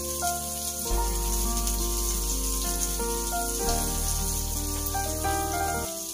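Onion and garlic sizzling as they sauté in oil in a frying pan, a fine steady crackle. Background music of held chords over deep bass notes runs alongside, the bass changing note about a second in, near the four-second mark and near the end.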